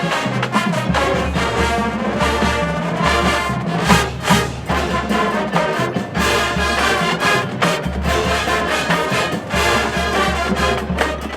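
Marching band playing brass-heavy music, trombones and trumpets over sharp drum hits.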